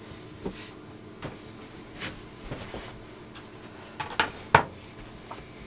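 Scattered light clicks and knocks from handling things at a workbench, the loudest about four and a half seconds in, over a faint steady hum.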